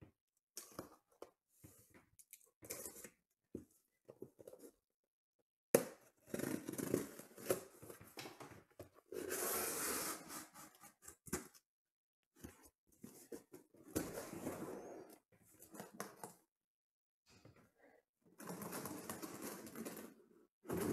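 Cardboard shipping case being cut open with a box cutter, then shrink-wrapped card boxes pulled out and stacked: an irregular run of slicing, scraping and rustling cardboard and plastic-wrap sounds, with a sharp knock about six seconds in.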